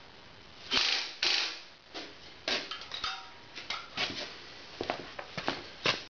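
Irregular knocks, clicks and scuffs of someone moving about on a concrete garage floor and handling things, with two short scuffing noises about a second in.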